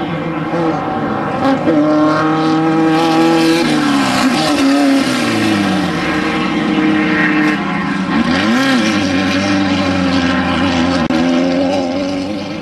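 Off-road desert race vehicle engines running at high revs. The pitch slides down about four seconds in, and the revs rise and fall quickly a few seconds later.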